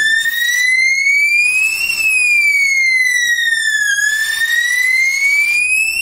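Strobe sounder base (Asenware AW-D120C) sounding its alarm tone, a loud siren that sweeps slowly up for about two seconds and down for about two seconds. It is sounding because the smoke detector mounted on it is in alarm. Short hisses of a smoke-test aerosol spray come in on top, about a second in and again after four seconds.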